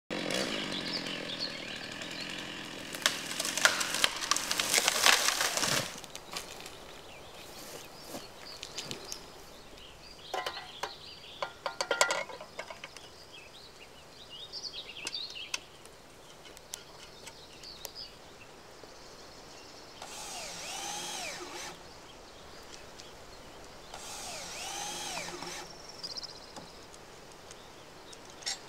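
Stihl chainsaw running loud for the first few seconds, then a quieter stretch of metal clicks and knocks as the saw is handled and fitted into a milling attachment, with two short swelling machine sounds near the end.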